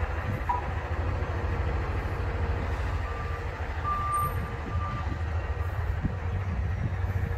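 Steady low rumble of a truck lot, with a distant vehicle reversing alarm beeping faintly a few times about halfway through.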